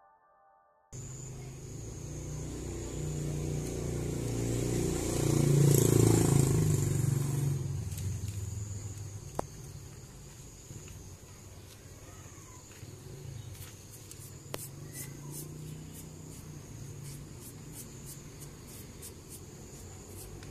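A motor vehicle passing, swelling to its loudest about six seconds in and fading away, over a steady background. Then light clicks and two sharp knocks from wooden beehive frames being handled.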